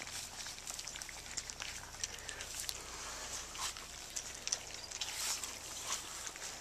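A litter of puppies lapping and slurping soft food from a bowl: a run of quick, irregular wet clicks and smacks.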